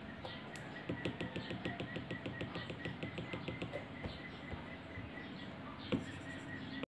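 Apple Pencil tip tapping quickly and lightly on an iPad Pro's glass screen, about six or seven taps a second for some three seconds, with one louder tap near the end before the sound cuts off.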